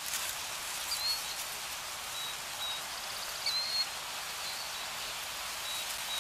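Steady, even hiss of outdoor ambience with several faint, short, high bird chirps scattered through it.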